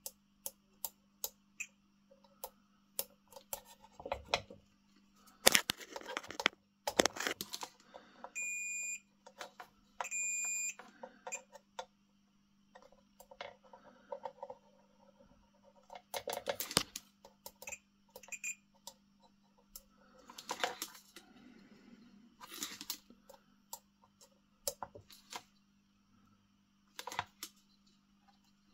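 Digital multimeter on its continuity setting giving two steady high beeps in quick succession, each just under a second long; the beep marks a closed circuit between the test probes. Around them come sharp clicks and rustles of the probes and cable being handled, the loudest a few seconds before the beeps.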